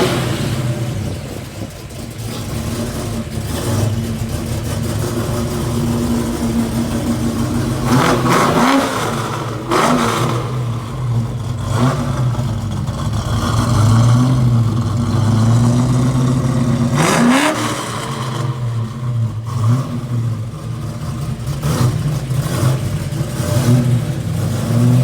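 1971 Plymouth Duster's 360 V8 idling, revved briefly twice, about a third of the way in and again past the middle.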